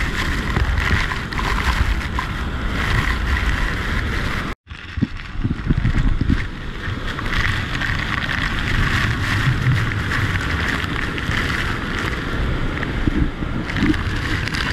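Bridal Veil Falls at Niagara: a loud, steady rush of falling water and spray, with wind and spray buffeting the microphone. The sound cuts out for an instant about four and a half seconds in.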